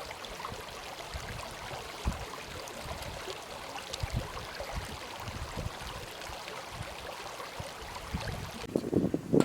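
Outdoor wind hiss, with wind buffeting the microphone in irregular low gusts and a few faint clicks; a voice starts near the end.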